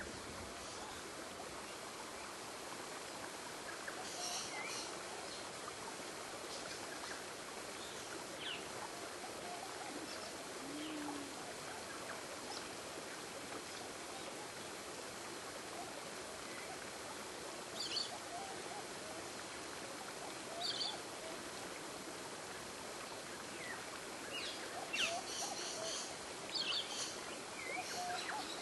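Steady running water with scattered short, high bird chirps, several coming close together near the end.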